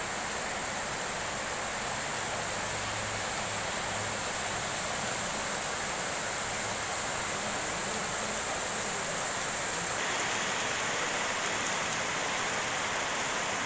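Heavy monsoon rain falling steadily, an even hiss with no let-up. The hiss shifts slightly about ten seconds in.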